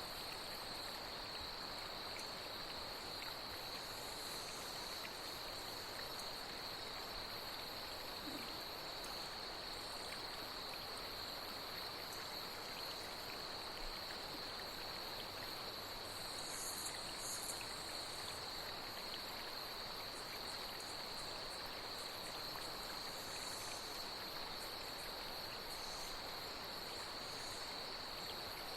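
Night insects trilling in one continuous high, steady drone over the even rush of flowing stream water. A few brief, higher chirps stand out around the middle and near the end.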